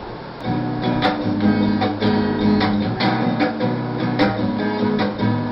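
Acoustic guitar strummed in a steady rhythm, starting about half a second in.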